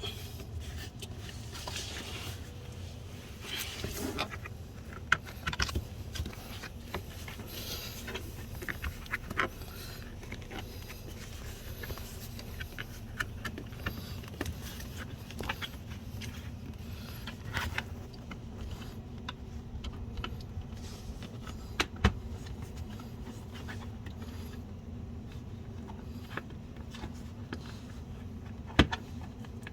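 Hands fitting a plastic door sill protector under a car's door-sill trim and rubber molding: scattered clicks, taps and scrapes with a few sharper knocks, one near the end, over a steady low hum.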